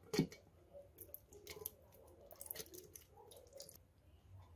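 Peeled litchi pulp being tipped from a bowl into a steel mixer-grinder jar: faint soft wet plops and a few light taps, the clearest tap just after the start.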